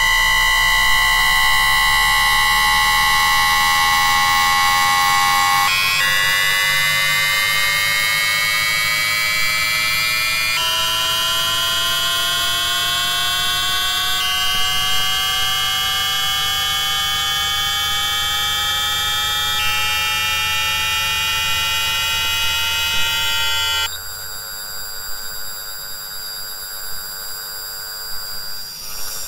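Siemens SIBAS 32 IGBT VVVF traction inverter of a Class 333 EMU picked up electromagnetically by a telephone pickup coil, without acoustic sound, while the train accelerates. It opens with a steady carrier whine under one rising tone. From about six seconds come sets of rising whines that jump to a new pitch pattern every four to five seconds, as the inverter switches between synchronous pulse modes. About 24 seconds in the rising tones cut out, leaving a quieter steady high whine.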